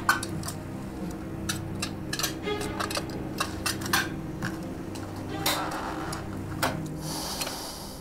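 Small metal clicks and taps of a flat metal case being handled and worked open, scattered irregularly, over a low steady background tone. A brief soft hiss comes in near the end.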